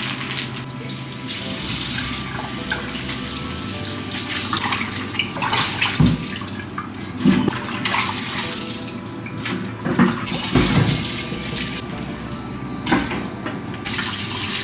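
Tap water running steadily into a kitchen sink, with several knocks and clanks of items being handled in the sink.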